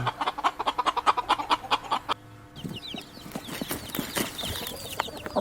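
Chickens clucking in quick, repeated short notes. About two seconds in, the sound cuts to a quieter stretch of small high chirps and scratchy clicks.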